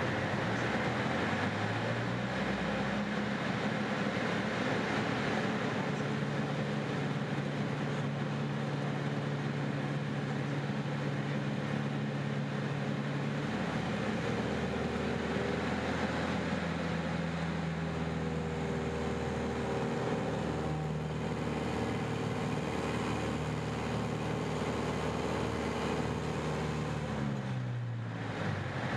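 Engine and propeller of a Mudry CAP 10 aerobatic plane, a four-cylinder Lycoming, running through aerobatic manoeuvres. Its pitch rises about two seconds in, shifts several times, and drops sharply near the end before picking up again.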